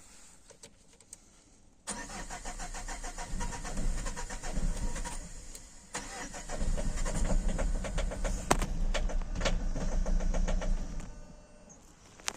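Citroen C5's starter motor cranking the engine over and over without it catching, in a long attempt that eases off briefly about halfway through: a no-start, which the owner links to fuel pressure and the fuel pressure regulator.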